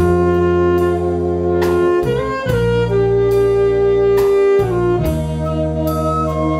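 Wind orchestra playing: saxophones and brass hold chords that shift every second or two, over intermittent sharp percussion strokes.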